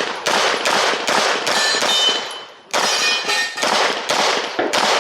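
9mm Glock 47 pistol fired in quick strings of shots, about three a second, with metal steel targets ringing after hits. The shots pause briefly a little past two seconds in, then resume.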